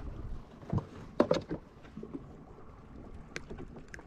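A few sharp knocks and rattles, loudest just over a second in, as a small grouper on the line is swung aboard a small boat and grabbed for unhooking, over a low steady background noise.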